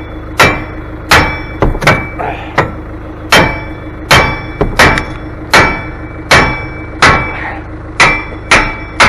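Repeated hammer blows on metal, about a dozen, each with a short metallic ring, knocking at a jammed part that will not shift.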